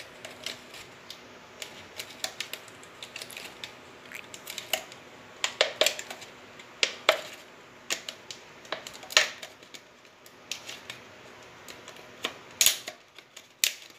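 The cut rim of a thin PET plastic bottle being bent inward by hand, crackling and clicking irregularly as the plastic folds.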